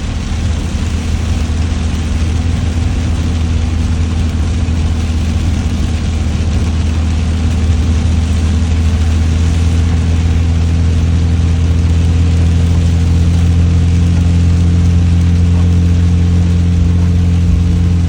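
Heavy rain falling as a steady hiss, with an engine running steadily underneath as a low hum that is the loudest part. The hum thickens with an added tone about halfway through.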